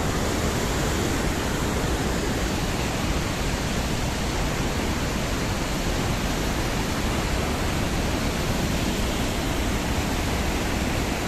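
Rushing muddy floodwater from a swollen stream, a steady, unbroken roar.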